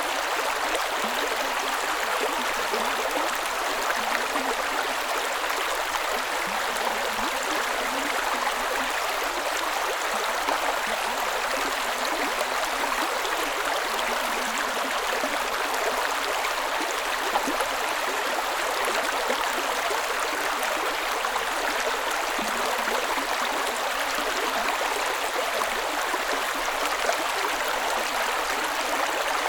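A creek running steadily over rocks: an even rush of water with a fine, constant babbling, with no rises or pauses.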